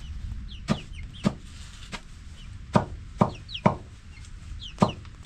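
About seven sharp chopping knocks at uneven intervals, with short high clucks and chirps of chickens between them.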